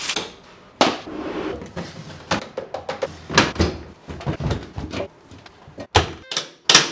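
Clothes and a plastic laundry basket being handled, with knocks and rustles as laundry is stuffed into the drum of a Maytag front-load washer, then the washer door shut near the end.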